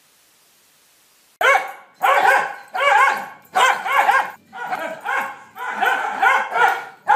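A dog barking in a string of about seven loud bursts, each rising and falling in pitch, starting about a second and a half in after faint hiss.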